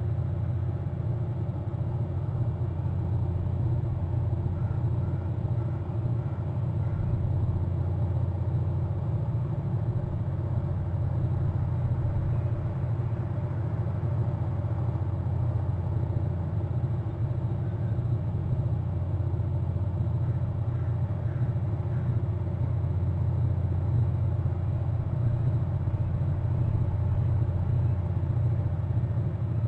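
A steady low rumble with a faint hum over it, with a few faint short high notes about five seconds in and again past twenty seconds.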